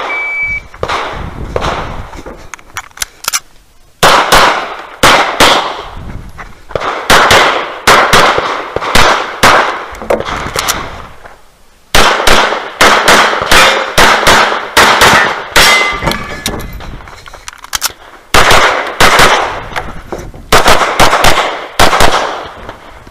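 A shot timer's start beep, then a pistol fired in rapid strings of shots, four strings in all with short pauses between them.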